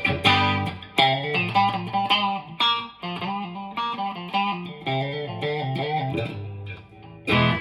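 1971 Gibson Les Paul Recording electric guitar played clean, with both pickups selected and the phase switch set to out of phase: struck chords about every second or two with short runs of single notes between them.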